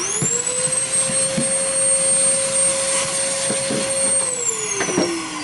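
Makita HR2811F rotary hammer's electric motor switched on: it spins up at once, runs at a steady high whine for about four seconds, then is released and winds down with a falling pitch, with a few light knocks from handling.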